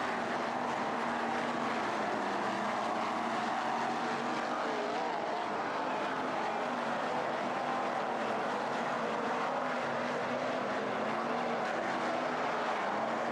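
A pack of 410 winged sprint cars racing on a dirt oval, their 410-cubic-inch V8 engines running together as a steady, dense drone. Several engine notes weave up and down in pitch as the cars lift and get back on the throttle through the turns.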